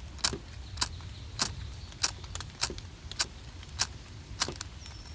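Hand-held spark striker scraped again and again, eight sharp strikes about every 0.6 seconds, throwing sparks onto quick tinder to light it.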